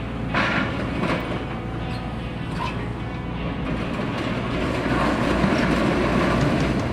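Link-Belt 210 hydraulic excavator's diesel engine running under load, with metal clanks and a louder grinding scrape of scrap metal and cylinder blocks being pushed, heaviest about five seconds in.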